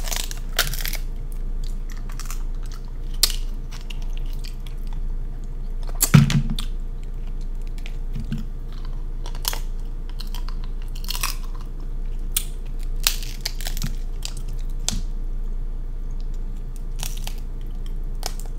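Close-miked chewing and mouth sounds of someone eating king crab legs, with scattered sharp clicks and crunches. The loudest comes about six seconds in.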